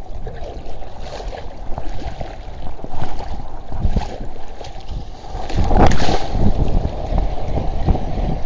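Wind buffeting the microphone over choppy sea water around a wading angler, with a louder surge about six seconds in.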